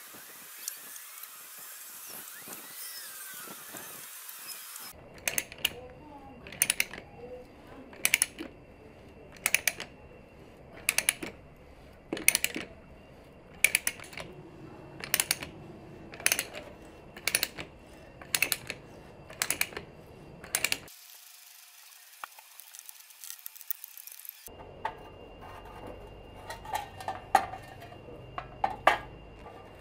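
Hand ratchet pipe threader worked on a steel pipe: sharp double clicks of its ratchet pawl about once every second and a bit, a dozen strokes in a row. More clicks follow after a short pause near the end. It opens with a few seconds of scratching as letters are scored into a hard surface.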